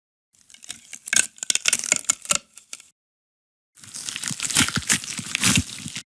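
Two sound-effect clips of crackling, tearing noise, each two to three seconds long, separated by about a second of dead silence.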